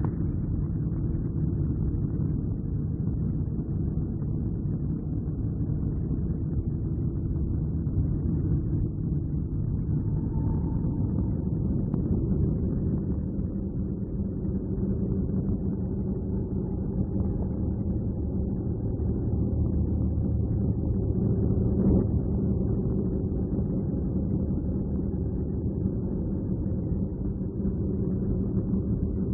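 Low, steady rumbling drone with faint held humming tones over it, an ambient space soundscape billed as a NASA Voyager recording of Saturn's rings.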